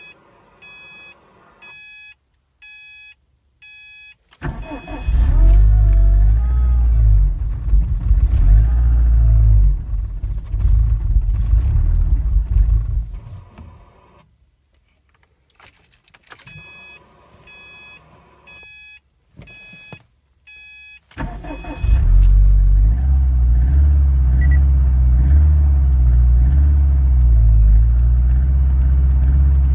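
Subaru WRX STI's turbocharged flat-four on E85 fuel, cold-started twice: dashboard chimes beep, the engine cranks and catches about four seconds in, runs unevenly for some eight seconds and dies. After more chimes it is started again about 21 seconds in and settles into a steady, high cold idle.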